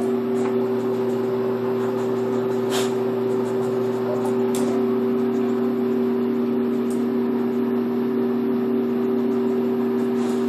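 A steady electric motor hum, a low drone with a faint hiss over it, running without change; a couple of faint clicks come through around the middle.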